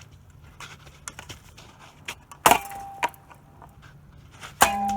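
A hand tool striking a ceiling fan hard twice, about two seconds apart, knocking its blades off. Each blow leaves a short metallic ring, the second one the loudest and longest, with a few small knocks between them.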